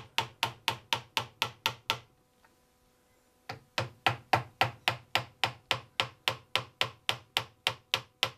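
Tack hammer (upholstery hammer) tapping fine nails into the hubcap of a wooden tea cart wheel: a steady run of light, quick taps, about four a second. The tapping stops for about a second and a half near two seconds in, then carries on at the same pace.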